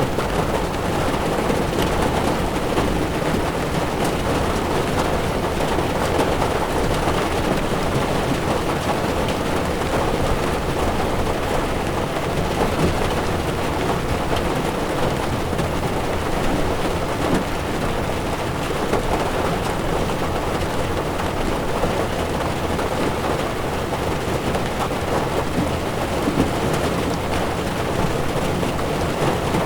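Heavy rain drumming on a car's windshield and roof, heard from inside a moving car, with a steady low rumble of tyres on wet road underneath.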